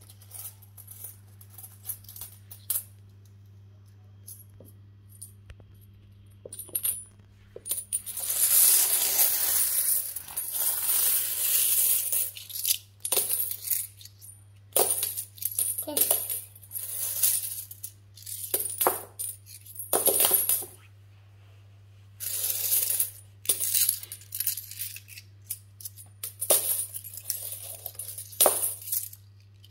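A heap of metal coins clinking and jingling as a child's hands scoop, drop and rake through them on a rug. It comes in many short bursts, with a longer stretch of continuous jingling about eight to twelve seconds in.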